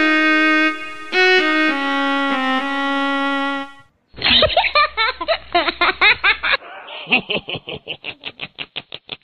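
A slow violin melody of long held notes, cut off about four seconds in. Then a different, thinner-sounding clip: a voice, followed by a run of short repeated bursts that come faster and faster toward the end.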